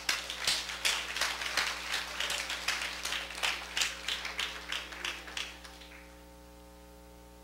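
Scattered hand clapping from a congregation, several sharp claps a second, dying away about five and a half seconds in.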